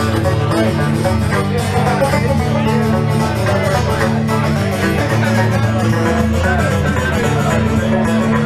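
Folk-style music with plucked strings over a steady bass line.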